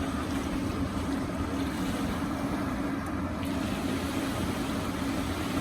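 A steady motor hum with a constant pitch under a wash of wind and surf noise.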